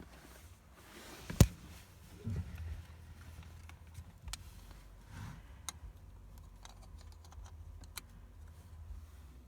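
A sharp click about a second and a half in as a seatbelt warning disabler plug is pushed into a Mercedes-Benz W212 seatbelt buckle, followed by fainter clicks and handling noises over a low steady hum.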